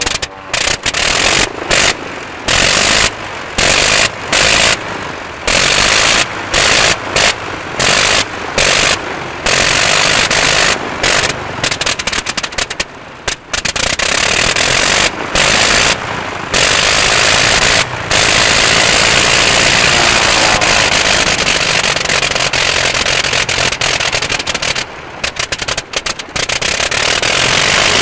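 Vintage Blériot-type monoplane's engine running just after its propeller was hand-swung to start it. For the first half it runs unevenly, cutting out briefly again and again, then it settles into steadier running.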